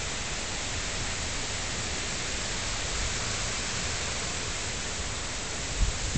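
Heavy rain pouring down steadily as a storm sets in, with a low thump near the end.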